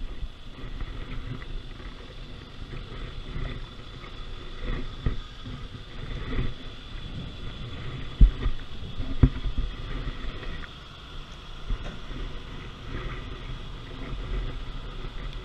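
Floodwater sloshing and splashing close to the microphone as it moves through the water, with wind noise on the microphone. Two heavier low thumps come about eight and nine seconds in.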